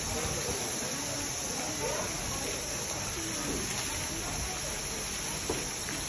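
Tatsumaki Jigoku hot-spring geyser spouting: a steady hissing rush of water and steam, with faint visitors' voices in the background.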